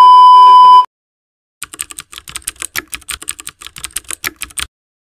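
A loud, steady test-pattern beep lasting under a second, then, after a brief gap, about three seconds of rapid computer-keyboard typing clicks, used as a sound effect.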